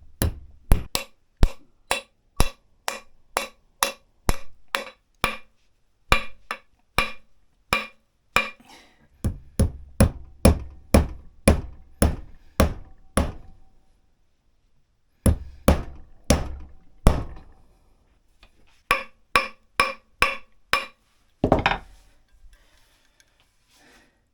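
Hammer blows driving wedges into the top of a new hickory axe handle seated in the axe head's eye: runs of sharp strikes about two to three a second, some with a brief ring, broken by short pauses.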